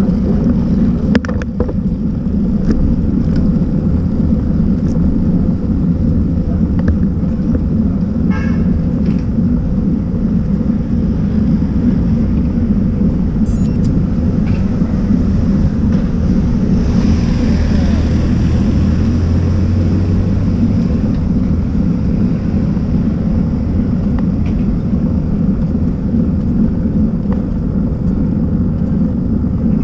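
Steady wind buffeting and road rumble on a bicycle-mounted action camera riding over asphalt, swelling louder for a few seconds just past the middle.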